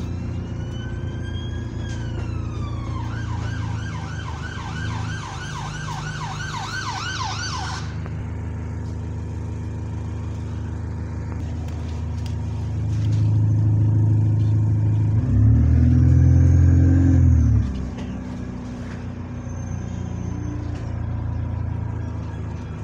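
An emergency vehicle's siren wails, falling in pitch, then switches to a fast yelp about three seconds in and cuts off about a third of the way through. The bus's diesel engine runs underneath and revs up, loudest in the second half as the bus accelerates.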